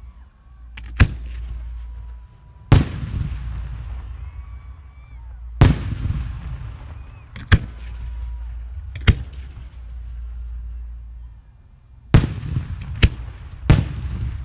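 Display fireworks bursting overhead: about eight sharp booms at irregular intervals, each trailing off in a rolling echo. A steady low rumble runs underneath.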